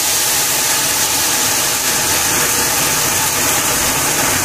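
Raw chinigura rice pouring from a stainless steel colander into hot oil and fried spice paste in a pot, frying with a steady sizzling hiss.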